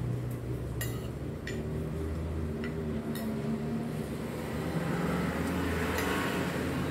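Metal forks clinking against a ceramic plate several times while noodles are twirled and eaten, over a steady low background hum.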